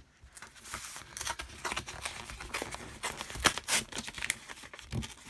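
Cardboard packaging being handled and a strip of masking tape peeled off it: irregular crinkling and rustling with scattered sharp clicks, the sharpest about three and a half seconds in.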